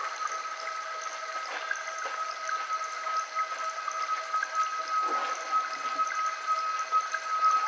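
A steady, even high tone held unbroken, with a weaker lower tone beneath it, over a soft water-like hiss.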